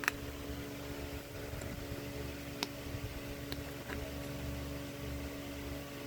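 Steady mechanical hum, with a few faint, sharp clicks as the removed differential axle seal is handled.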